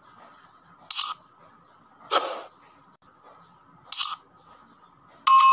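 Sound effects of an animated subscribe button: three short click and swoosh sounds about a second apart, over a faint steady tone. A bright notification-bell ding comes near the end.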